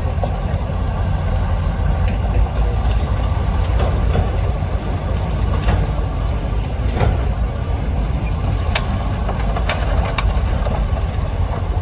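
Heavy earthmoving machinery's diesel engine running steadily with a deep rumble, with a few short, sharp clanks scattered through.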